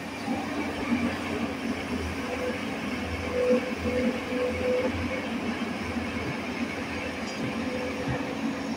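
Tata Hitachi EX210LC crawler excavator's diesel engine and hydraulics running with a steady drone as the machine swings and digs a bucket of soil.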